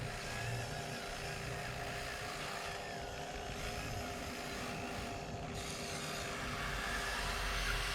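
Scale RC hydraulic excavator running, its electric hydraulic pump and motors giving a steady whine and hum.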